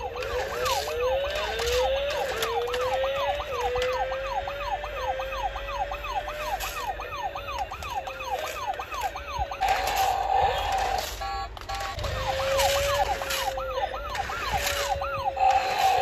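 Electronic siren sound effect from a toy remote-control police motorcycle. It is a quick up-and-down warble of about two to three sweeps a second over a slower, repeating rising tone. It breaks into a steady held tone about ten seconds in and again near the end.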